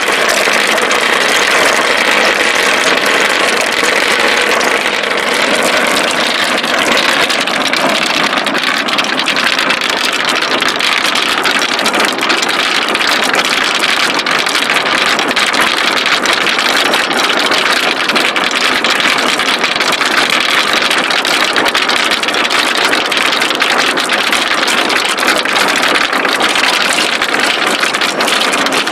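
Many marbles rolling and clattering without a break down a wooden marble-run slope, a dense, steady rattle of small clicks.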